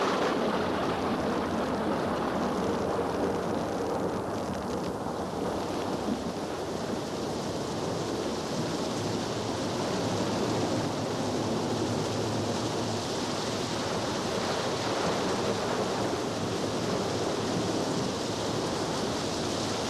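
A steady, even rushing noise that turns hissier about five seconds in and then holds.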